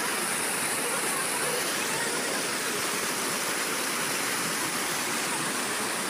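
Steady rush of white water cascading down a waterfall over rocky ledges.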